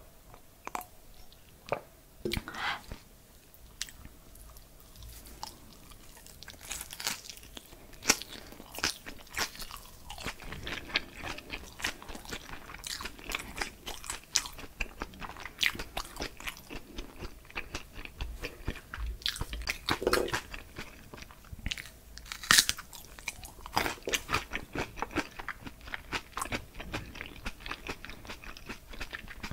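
Close-miked chewing of a crunchy mouthful: a run of crisp crunches, sparse at first and coming thick and fast from about six seconds in.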